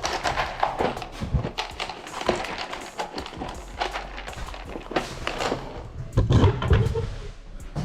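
Scattered small clicks and light knocks of screws and metal hardware being handled.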